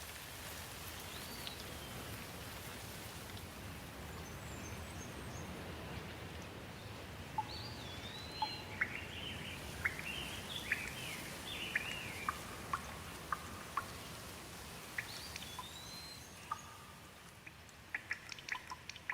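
Steady rain with birds calling over it: chirps and whistled, gliding calls, busiest in the middle. Near the end the rain eases and single drips tick sharply.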